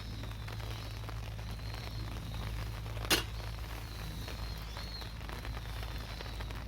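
Steady rain pattering, mixed with the small crackles of a wood campfire. One sharp, loud snap about three seconds in.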